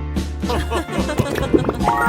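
Background music with steady held bass notes; from about a quarter of the way in, quick high tones that slide up and down join it.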